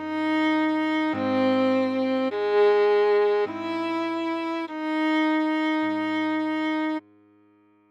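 Viola playing a slow melody of long held notes, changing about once a second, over low sustained accompaniment notes. The music cuts off suddenly about seven seconds in, leaving a faint fading tone.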